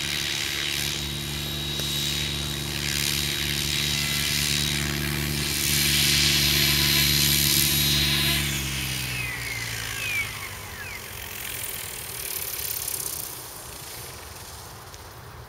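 Mikado Logo 600 SE electric RC helicopter hovering close, rotor and motor running at a steady pitch. After about eight and a half seconds, as it sets down, the motor is cut and the rotor spools down, its whine falling away.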